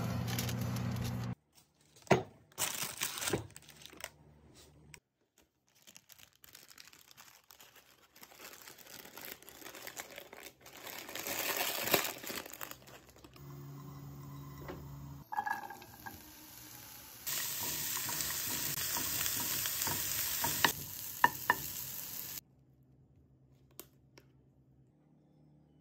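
A run of short kitchen handling sounds: rustling and crinkling of baking paper and plastic wrap, with a few sharp clicks early on and stretches of steady hiss, the loudest swell around the middle.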